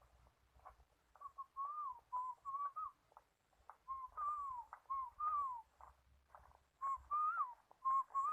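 Dove cooing: three phrases of short clear notes, each ending in a longer falling note, repeated about every three seconds.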